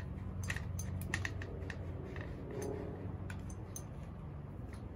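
Scattered light clicks and taps from handling an e-bike seat post, over a steady low hum.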